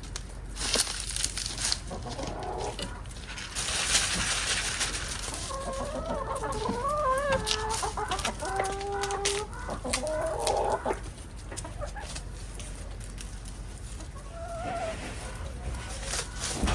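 Chickens clucking and calling, with a run of wavering, drawn-out hen calls in the middle. A brief rush of noise comes about four seconds in, and there are scattered light clicks.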